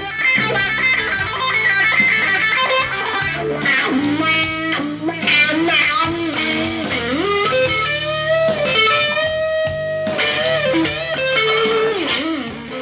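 Electric guitar playing rock music, a lead line with bent, gliding notes that grows busier about four seconds in.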